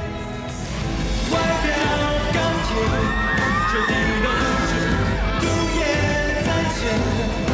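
Pop song with a male lead vocal. The music grows louder and fuller about a second in.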